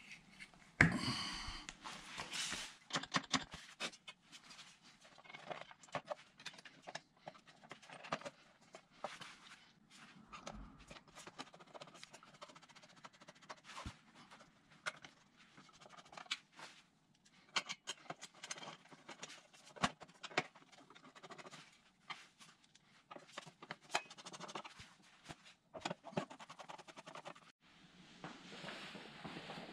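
Hand work on a scooter with a screwdriver: irregular clicks, taps and short scrapes of the tool and small metal parts, with a louder stretch of rustling and scraping about a second in.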